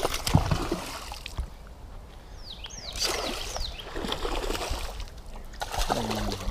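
Hooked bass splashing and thrashing at the water's surface as it is fought toward the boat, with a few sharp splashes in the first half second and more splashing again from about halfway.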